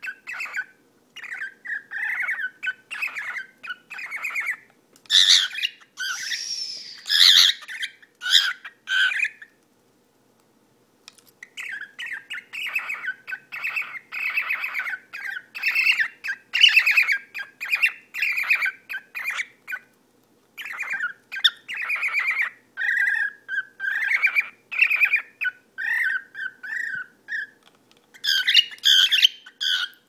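Cockatiel purring, a near-continuous run of short chattering calls, with louder, shriller calls about five seconds in and again near the end, and a short pause about ten seconds in.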